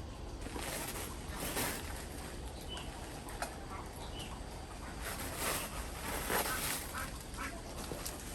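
Ducks quacking in two harsh stretches, one about half a second in and another around five seconds in, with a few short high calls between.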